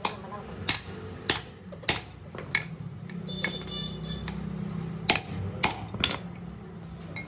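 Sharp ringing metal-on-metal taps, five evenly spaced about 0.6 s apart, then a brief ringing scrape, then three more taps, over a low steady hum.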